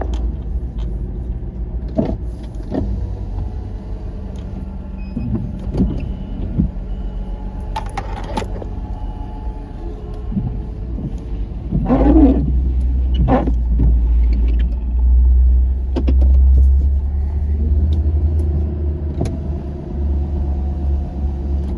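Vehicle engine running, with a few sharp knocks and clunks; the low rumble grows louder about halfway through and stays up until near the end.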